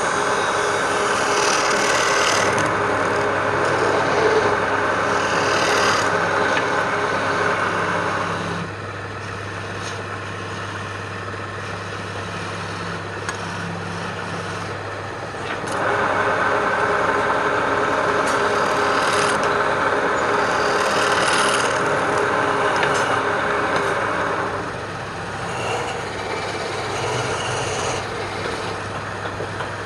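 An electric power tool running steadily and working wood in two spells of about eight seconds each, with quieter running of the motor between and after them. A few light clicks come near the end.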